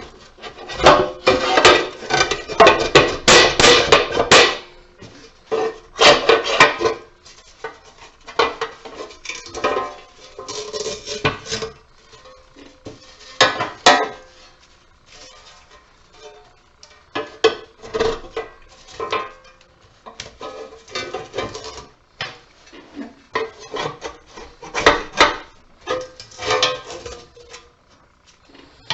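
Metal parts of a light fixture clanking and clinking as it is dismantled by hand for scrap: irregular knocks and rattles, some with a short metallic ring.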